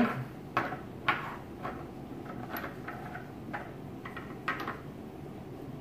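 Small glass essential-oil bottles being handled on a table: a handful of light, sharp clicks and taps spread over a few seconds, the first two the loudest.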